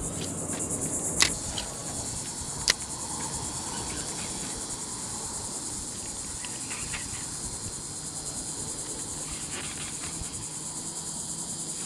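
Cicada chorus with a steady, high buzz. Two sharp clicks about a second and a half apart stand out in the first three seconds.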